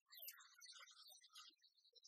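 Near silence: only faint, scattered high-pitched traces.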